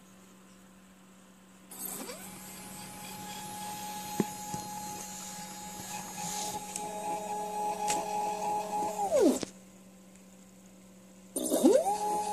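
Small stepper motor driving a mini tapping head. It ramps up quickly to a steady whine and runs about seven seconds with a couple of clicks, then winds down sharply. About two seconds later it starts again and climbs back to the same pitch.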